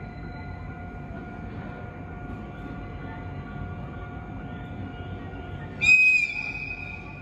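A train's horn gives one short, high-pitched blast about six seconds in, over a steady hum and low rumble: the warning horn of the sleeper train Cassiopeia as it approaches the platform.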